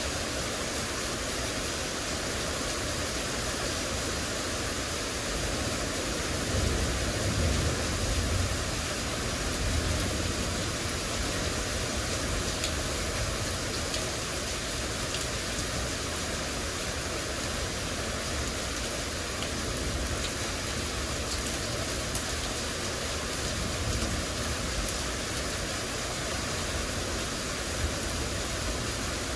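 Heavy rain pouring steadily in a thunderstorm: a dense, even hiss. A low rumble swells for a couple of seconds about seven seconds in.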